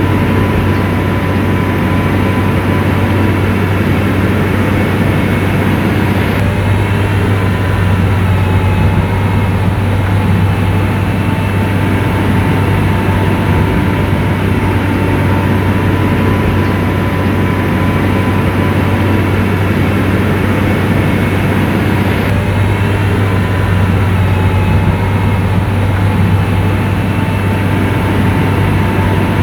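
Heavy diesel engine of an SDLG motor grader running steadily, with a strong low hum and a faint steady whine above it.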